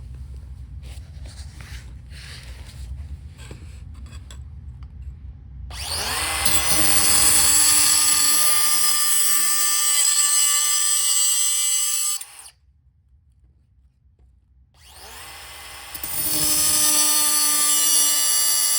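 A power tool cutting sheet steel to make a patch piece. It spins up about six seconds in and runs with a loud high whine, stops after about six seconds, then spins up and cuts again near the end.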